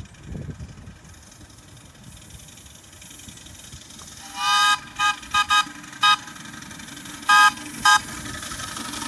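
Miniature steam locomotive's whistle sounding a series of toots: one longer blast about four seconds in, several quick short ones, then two more near the end. Underneath is the low running rumble of the approaching train, growing steadily louder.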